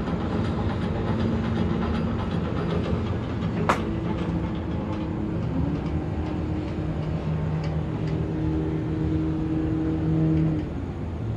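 Steady low rumble of city traffic with distant Indian chanting over it, heard as long held notes; the chanting sounds like it comes from a temple. One sharp click about a third of the way in.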